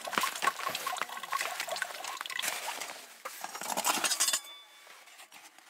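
Metal camp cookware clinking and clattering as nested pots are handled and pulled out of a cloth stuff sack. The clatter stops about four seconds in.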